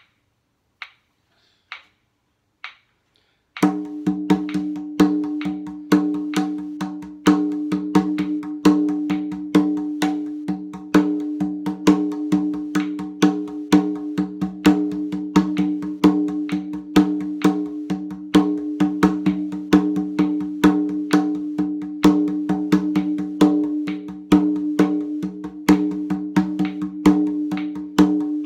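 Rawhide-headed hand drum played with bare hands. It starts with a few light taps, and about three and a half seconds in a fast, steady rhythm of strikes begins and keeps going, with a steady ringing pitch underneath.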